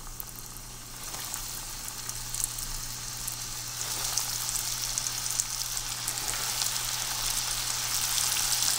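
Flour-dredged axis deer backstrap pan-frying in hot bacon grease and vegetable oil: a busy sizzle full of small crackles and pops, growing louder as more pieces go into the pan.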